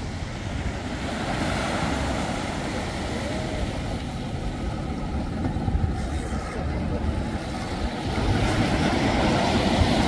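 Wind buffeting the microphone over small waves washing ashore among moored fishing boats, growing somewhat louder near the end.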